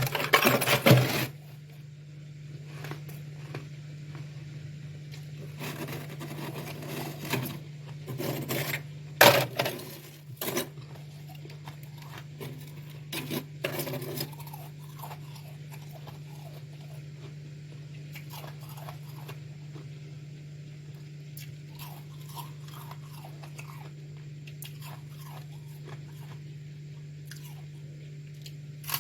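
Freezer frost being bitten and chewed with loud crunches: a heavy burst right at the start, more clusters of crunching about a quarter and half of the way through, then quieter scattered crackles of chewing. A steady low hum runs underneath.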